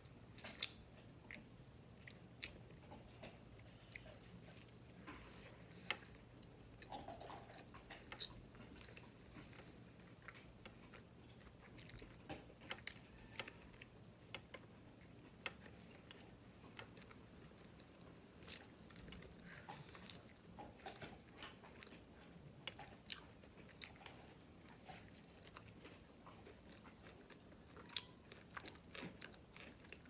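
Quiet chewing of an Italian beef sandwich, with many irregular sharp wet clicks and smacks from the mouth throughout.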